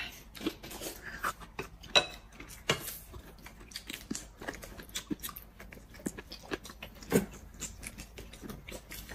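Close-miked eating sounds: rice noodles slurped from a bowl and food chewed, a steady run of short wet smacks and clicks with a few louder ones.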